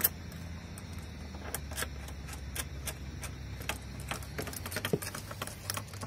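Steel snap links (carabiners) clinking and clicking as they are handled and clipped onto a rappel anchor bar: a scattering of light, irregular metal clicks over a low steady rumble.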